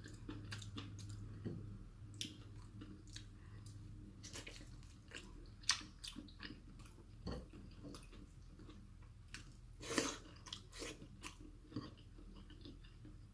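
A person chewing food with soft, irregular smacking clicks, the loudest about ten seconds in.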